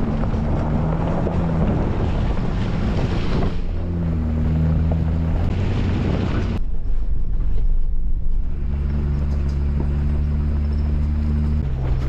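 Jeep Wrangler JL's engine running steadily under way on a dirt forest road. Loud tyre and wind rush is mixed in for the first six seconds or so and then eases. The engine note changes pitch near the end.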